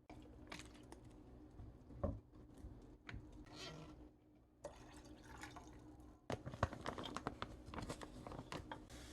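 Light kitchen handling sounds: scattered clicks and taps with some liquid being poured or dripping, busier in the last third.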